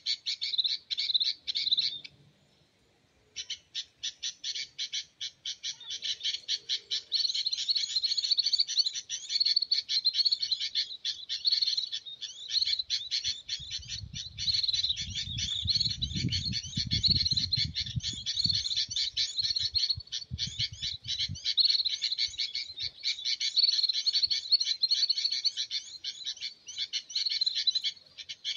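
Bird-trapping lure call played from a speaker: a dense, fast run of high chirps, repeating evenly, that stops briefly about two seconds in and starts again. Wind rumbles on the microphone for several seconds in the middle.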